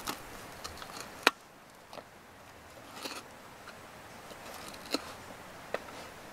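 Folding knife cutting through a crisp toasted sandwich on a wooden board: a short crunching and scraping of the crust, with a few sharp clicks. The loudest click comes just over a second in.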